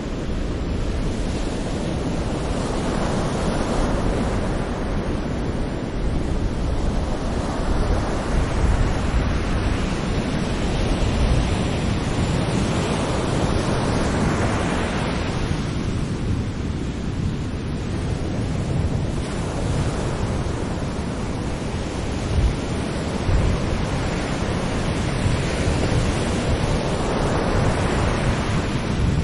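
Sea waves breaking on a shore: a steady wash of surf that swells and falls back every several seconds, with a low rumble underneath.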